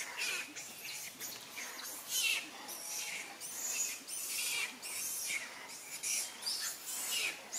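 Macaques in a tree making a run of short, high-pitched squeals, about two a second.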